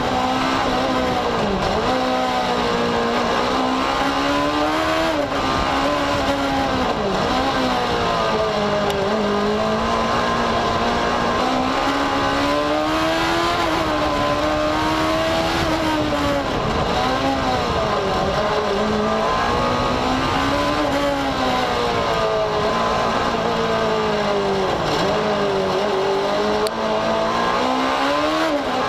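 Racing prototype's engine heard from a camera mounted on the car, revving hard and dropping back again and again as it accelerates, brakes and shifts between cones and chicanes. The pitch rises and falls every couple of seconds, with sharp drops several times.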